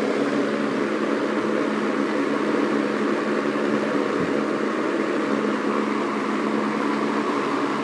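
Arctic Aire 200 box fan running steadily on its high speed: an even rush of air from the blades over a steady hum from its Fasco motor.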